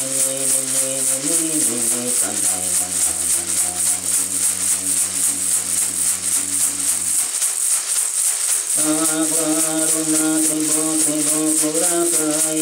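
A shacapa (dried-leaf bundle rattle) and a gourd maraca shaken together in a steady fast rhythm, accompanying a man's low voice singing a wordless icaro in long held notes. The voice breaks off for a moment a little past the middle, then comes back in.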